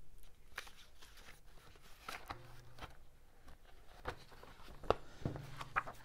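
Faint rustling and handling of paper sheets, with scattered light clicks and taps, while searching through papers.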